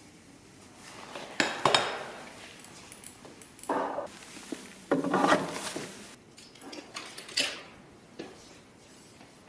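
Brompton folding bike being folded: metal clicks, clinks and rattles from its frame, hinges and chain come in about five separate bursts.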